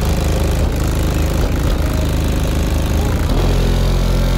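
Car audio system of twelve Sundown SA 15-inch subwoofers playing bass-heavy music at high volume, heard from outside the vehicle. A deeper, louder bass note comes in about three seconds in.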